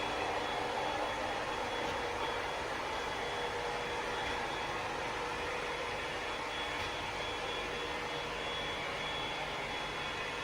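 Ecovacs Deebot X9 Pro Omni robot vacuum and mop running, a steady whir of its motor and fan with a thin high whine held constant throughout.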